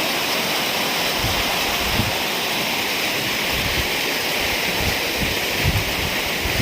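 Rain falling steadily in a storm, with a few brief gusts of wind buffeting the microphone.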